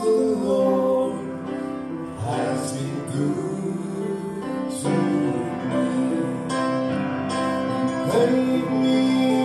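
Gospel song performed live: male voices singing through microphones over a small band's accompaniment.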